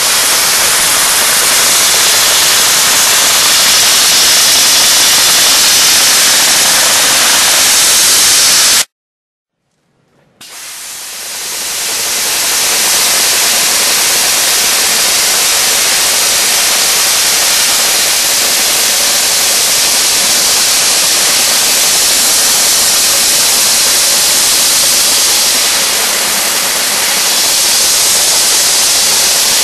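Dry ice blaster nozzle blasting, a loud, steady hiss of compressed air and dry ice pellets stripping chewing gum off a metal floor plate and then marker off a plastic seat. The hiss cuts off abruptly about nine seconds in, and after a second and a half of silence it builds back up over a couple of seconds and runs steadily again.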